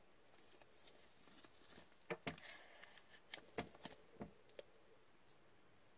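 Faint scattered clicks and taps of a rigid plastic card toploader handled with gloved hands as a trading card is put into it.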